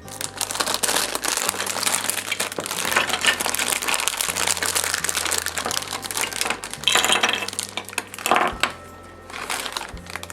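Plastic packaging crinkling and crackling as it is handled, in dense bursts with a short pause in the middle and near the end.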